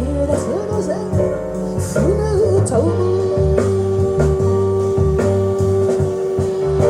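Recorded Japanese enka song playing through Victor JS-55 loudspeakers: a steady bass line under a wavering melody that settles into one long held note about three seconds in.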